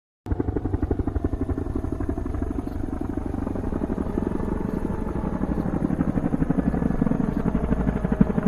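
An engine running with a rapid, steady pulsing beat, growing a little louder near the end.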